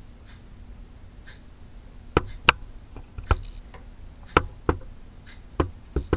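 Irregular light clicks and knocks of hands handling a PC case and camera, about seven over the last four seconds, over a faint steady low hum.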